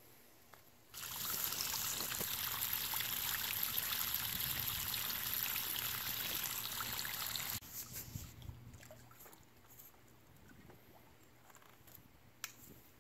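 Pool water pumped out by a submersible sump pump gushing from the end of a pool vacuum hose onto grass, draining the pool's water level down. It starts about a second in and cuts off suddenly a little past halfway, leaving only faint sounds.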